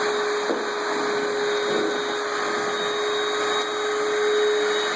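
Vacuum cleaner running steadily with a constant hum, sucking bed bugs out of an infested room. A brief knock about half a second in.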